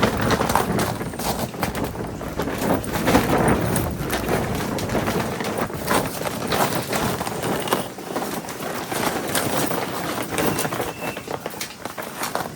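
Footsteps: an irregular run of crunching, scuffing steps, with no engine running.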